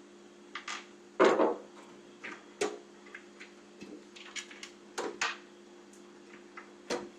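Scattered clicks, taps and rattles of hands working a cable through a computer case while pulling out and re-threading the power-button cable, with a louder clatter about a second in. A steady low hum runs underneath.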